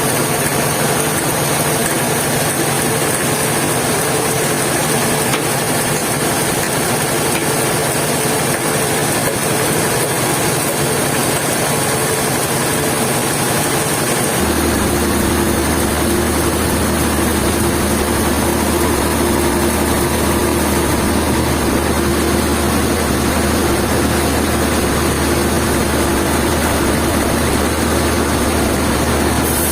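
Heavy machinery engine running steadily. About halfway through the sound changes abruptly to a deeper, steadier hum.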